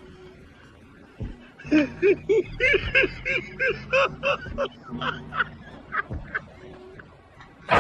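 A person laughing in a quick string of short, high-pitched bursts, about three a second, for several seconds. A loud bang, like a door slamming, comes right at the end.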